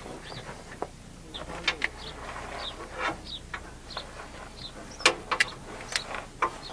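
Heavy battery cables being pulled and handled against the metal underside of an RV: scattered sharp clicks and knocks, several in quick succession about five seconds in, with short high chirps in the background.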